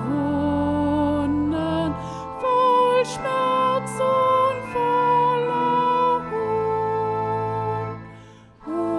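A hymn sung to organ accompaniment: held melody notes over steady sustained bass tones, with a brief drop in level near the end between phrases.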